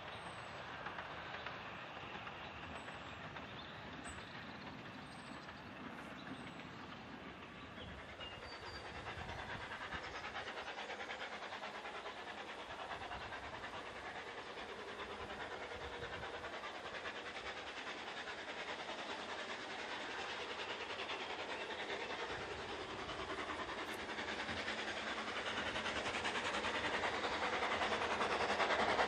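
A steam train heard faintly in the distance with birds chirping. After a few seconds the sound of a narrow-gauge steam locomotive, No.190 Lyd, comes in and grows steadily louder as it approaches.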